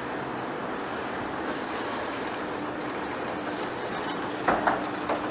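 Heavy-duty face lathe running as it turns a large steel shaft: a steady mechanical drone with a faint even hum. Two or three short sharp knocks come about four and a half seconds in.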